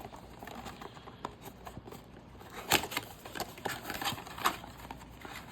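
Cardboard blaster box and sealed card packs being handled: scattered clicks, taps and light rustling, with a sharper click a little under three seconds in.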